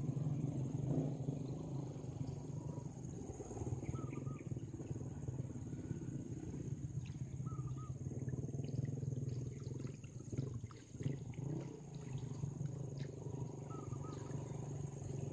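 A hancau lift net being hauled up out of a river on its bamboo pole, with water splashing and streaming from the mesh through the second half, over a steady low rumble.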